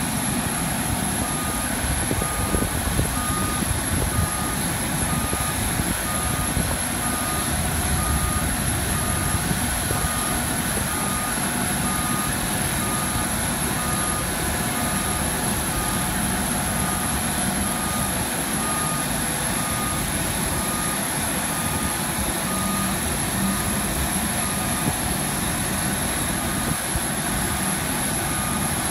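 Motion warning beeper on a Mototok electric towbarless aircraft tug, beeping steadily about once a second as the tug moves an aircraft by its nose wheel, over a steady low rumble.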